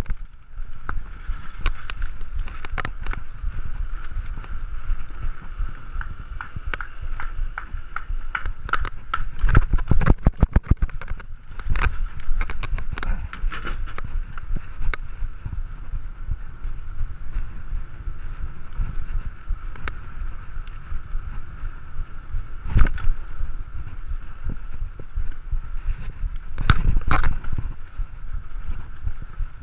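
Specialized Stumpjumper mountain bike ridden over concrete and asphalt, making steady tyre and drivetrain noise. There is a burst of rattling jolts from bumps about ten seconds in, and two more sharp jolts later on.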